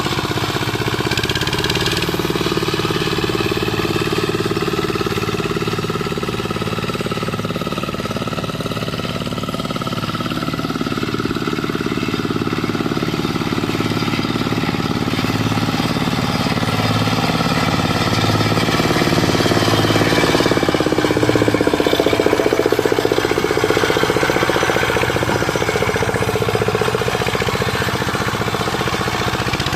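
Single-cylinder Dongfeng diesel engine on a Quick Impala two-wheel hand tractor running steadily under load while tilling, with a regular low beat. It gets somewhat louder about twenty seconds in, then settles back.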